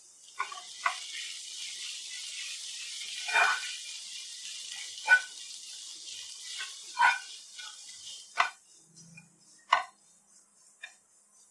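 Kitchen tap running into a sink, with clinks and knocks of a dish or utensils against it. The water stops about eight seconds in, and a few more separate clinks follow.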